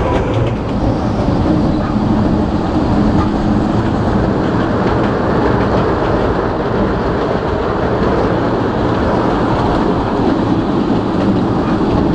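Kurobe Gorge Railway's narrow-gauge train running steadily, an even, loud rolling noise of its wheels on the rails heard from on board.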